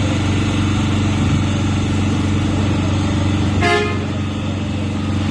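Street noise: a steady low hum of a running vehicle engine, with a short car-horn toot about three and a half seconds in.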